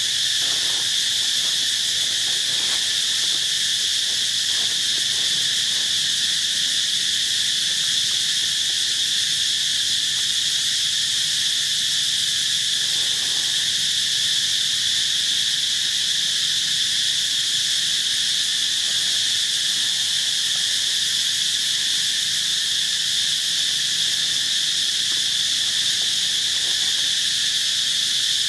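Insect chorus in tropical forest: a loud, steady, high-pitched drone with a weaker lower band beneath it, unbroken throughout.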